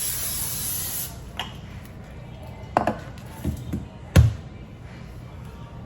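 A hiss of about a second, then a handful of knocks and taps from kitchen things being handled, the loudest about four seconds in.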